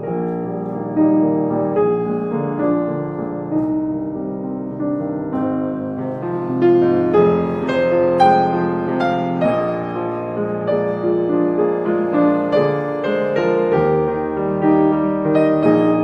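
Background piano music, a melody of notes played one after another over held chords.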